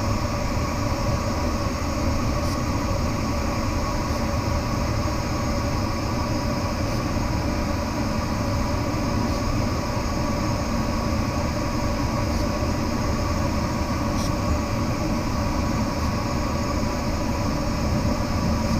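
Steady rushing airflow over a glider in flight, heard inside the cockpit, with a few faint steady whining tones running under it.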